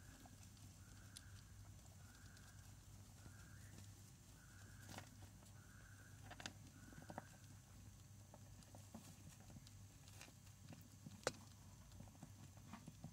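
Faint, scattered clicks and rustles of a baby hamster rummaging through seeds, corn kernels and pellets in a glass food bowl and nibbling on them, with one sharper click late on. A faint steady low hum runs underneath.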